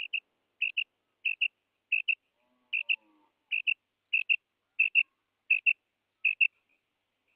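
Recorded call of a female rain quail, the playback used to lure quail: short, high double notes repeated steadily, about one pair every 0.7 seconds.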